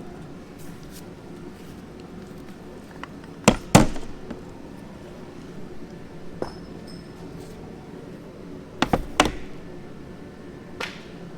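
Sharp metallic knocks and clinks of steel engine parts being handled and set down, in two close pairs and a few lighter taps.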